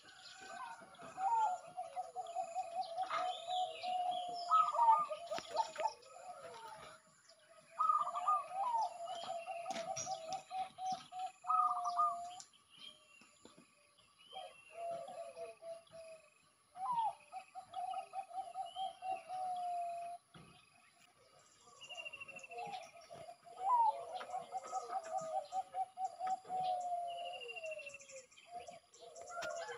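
Caged zebra dove cooing: repeated phrases, each opening on a higher note and running into a rapid string of low coos for a few seconds, with short gaps between. Other small birds chirp faintly behind it.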